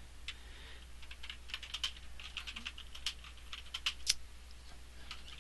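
Typing on a computer keyboard: irregular runs of quick key clicks with short pauses between them, one keystroke struck harder about four seconds in.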